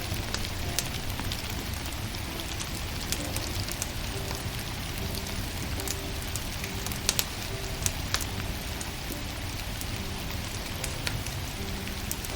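Wood fire crackling, with sharp irregular pops over a steady rain-like hiss.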